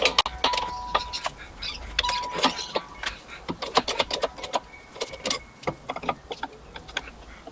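Small metal parts and tools clinking and tapping as they are handled and set down on a workbench, a series of irregular light clicks and knocks, a few with a short metallic ring.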